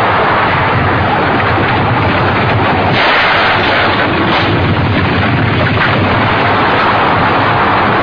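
Continuous rumbling explosion and destruction sound effects from an animated film, with sharper blasts about three and four and a half seconds in.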